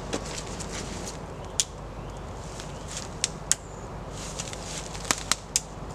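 Footsteps and dead twigs snapping in woodland leaf litter: a handful of short sharp cracks, several close together about five seconds in, over a steady background hiss.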